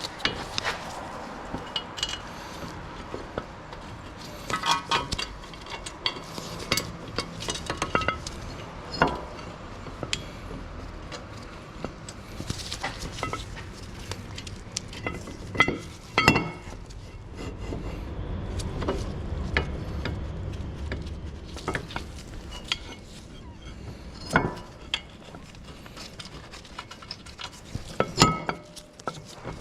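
Metal hand tools and steel parts clinking and knocking against each other in an irregular scatter of sharp clicks and clanks, some briefly ringing, during hands-on brake work with sockets on a car's front disc rotors.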